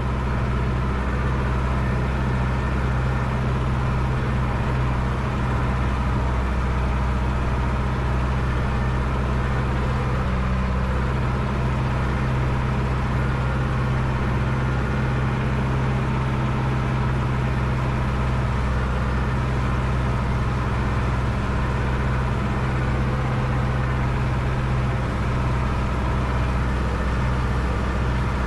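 Case IHC 844 XL tractor's four-cylinder diesel engine running steadily at constant speed while mowing, heard from inside the cab.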